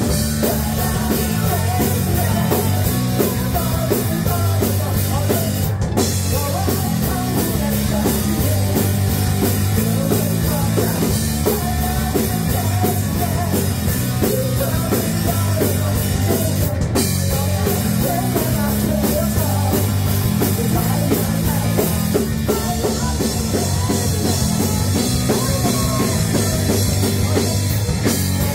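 Live rock band playing loudly, with a driving drum kit under a singer's vocals.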